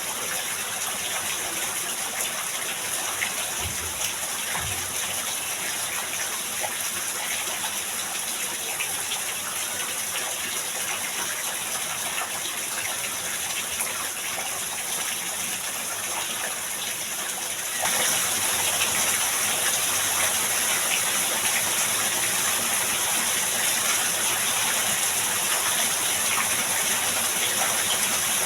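Heavy rain pouring down in a steady hiss, with two faint low thuds about four seconds in. About eighteen seconds in the rain suddenly gets louder.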